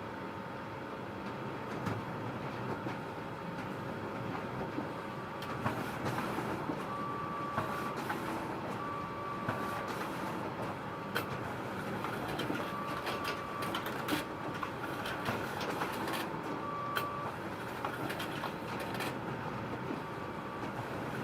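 Photocopier running: a steady mechanical hum with irregular clicks and several brief higher whines as it works through its cycle.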